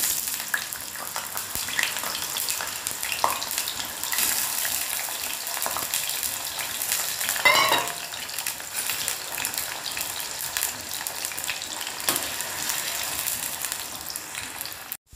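Cut potato pieces deep-frying in hot oil in a stainless steel kadhai: steady, dense sizzling and crackling. About seven and a half seconds in, a brief high-pitched squeal rises over the sizzle.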